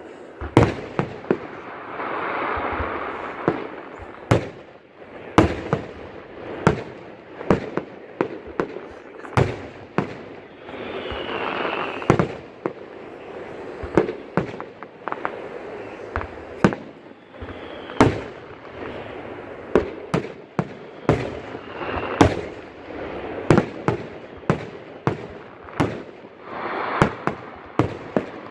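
Fireworks display: a rapid, irregular succession of aerial shell bursts, often several a second, with stretches of crackling after some of the bursts.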